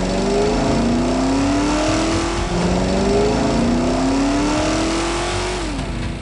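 Cartoon car engine sound effect revving up again and again, several rising engine tones overlapping, over a steady hiss.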